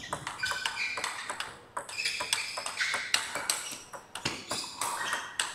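Table tennis rally: the celluloid-type plastic ball clicks back and forth off the players' bats and the table in a fast, irregular run of sharp hits, with brief high pings.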